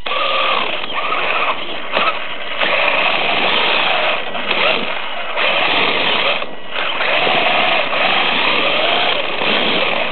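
Brushless electric motor and drivetrain of a Traxxas Stampede RC truck running hard on a hard floor, heard from on board: a whine that rises and falls in pitch with the throttle over a rushing noise, dropping away briefly several times as the throttle is let off.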